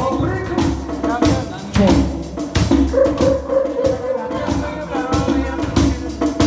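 Live band playing, with drum kit beats, a steady bass line and a held melody line.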